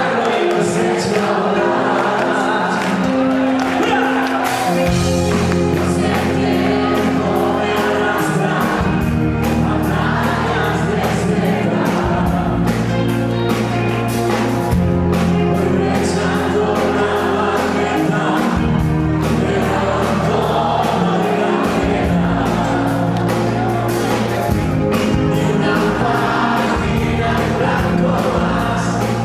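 Live concert music: a band playing with singing, loud and steady. Long held bass notes come in about five seconds in and change every few seconds.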